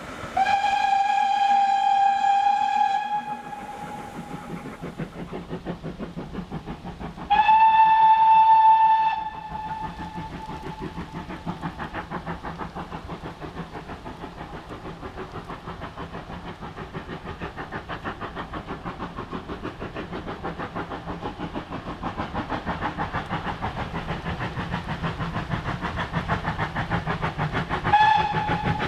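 Steam locomotive whistle blowing two long single-note blasts a few seconds apart, then a short blast near the end. Between them the locomotive's exhaust beats run as a fast, even chuffing that grows louder.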